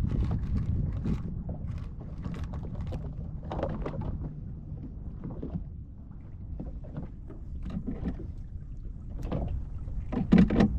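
Scattered knocks and clunks on a small fishing boat over a low rumble, with a louder thump near the end.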